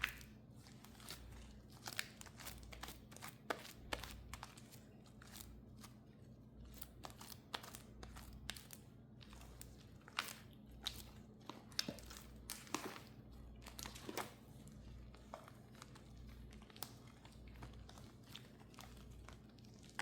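Slime being squeezed and worked by hand, giving off a steady run of irregular crackles and small pops, over a low background hum.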